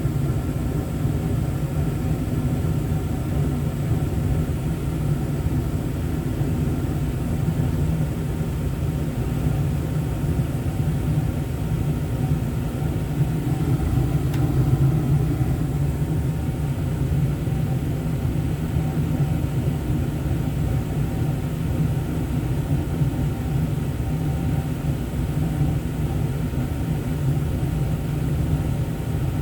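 Carrier 58PAV gas furnace running with its newly replaced inducer motor: a steady low rumble with a faint hum that does not change.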